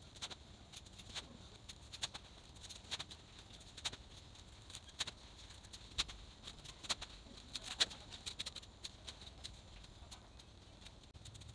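Spade digging and turning garden soil, played back sped up: a fast, irregular run of sharp clicks and scrapes.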